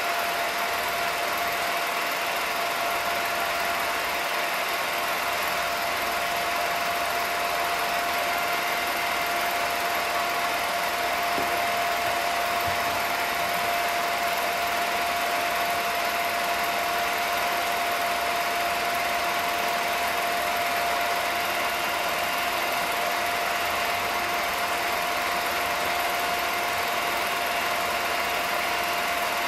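Film projector running, a steady mechanical whir with one constant hum-like tone throughout.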